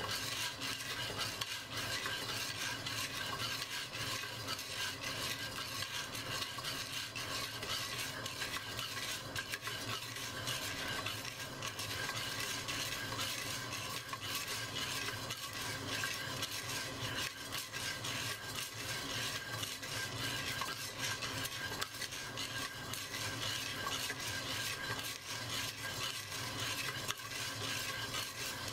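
Coffee beans being stirred in a ceramic pot during home roasting: a continuous dense rattle and scrape of many small ticks.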